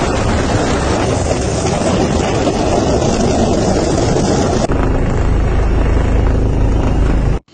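Steady, loud drone of a helicopter in flight, heard from aboard: engine and rotor noise with rushing wind. About two-thirds of the way through the high hiss drops back, and the sound cuts off abruptly just before the end.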